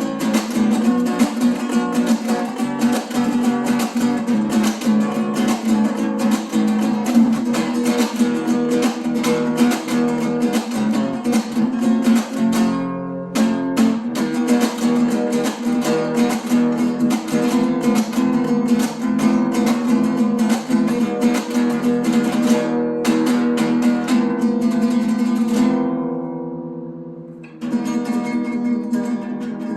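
Acoustic guitar strummed briskly in a Latin-flavoured instrumental. The strumming eases off for a moment about 13 seconds in, and again a couple of seconds before the end, where a chord is left ringing before the rhythm picks up again.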